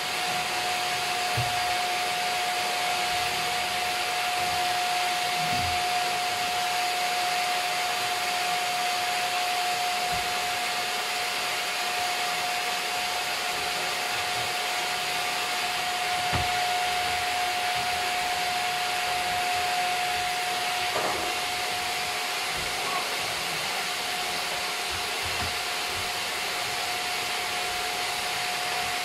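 Canister vacuum cleaner running steadily, a constant whine over the rush of suction, with a few soft knocks as it is worked over the floor.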